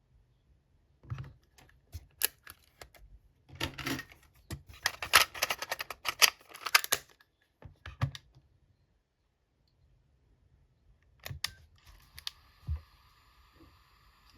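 Small plastic clicks and rattles of a cassette and a Sony WM-EX921 Walkman being handled, densest in a flurry in the middle. A few more clicks follow, then a faint steady whine near the end.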